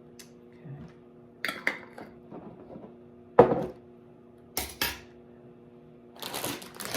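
Kitchen utensils and dishes clinking against a bowl: a handful of sharp clinks, the loudest about halfway through, followed by a rustling scrape near the end.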